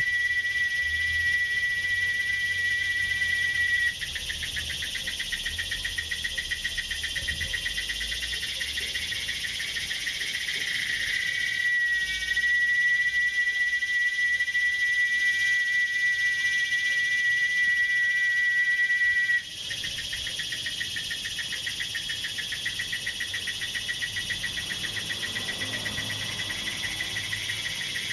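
Crickets trilling steadily in a continuous high trill, shifting abruptly in pitch and loudness about four seconds in and again about two-thirds of the way through.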